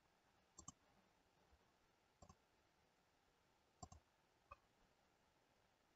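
Faint computer mouse clicks: three quick pairs of clicks and one single click, spaced a second or two apart.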